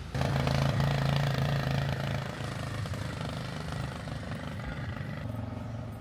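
A motor vehicle's engine running steadily. It starts abruptly, eases slightly in level, and its tone shifts about five seconds in.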